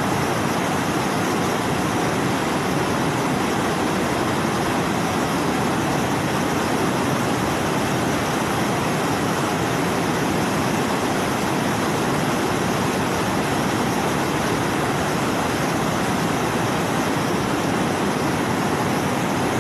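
Waterfall rushing, a loud, steady, unbroken roar of falling water.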